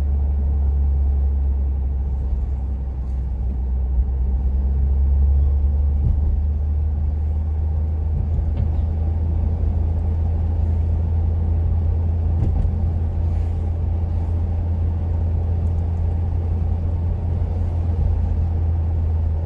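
Cabin of a 2015 Mitsubishi Lancer Evolution X GSR on the move, with a steady low engine and road drone from its turbocharged 2.0-litre four-cylinder on the stock air intake. The drone swells slightly a few seconds in.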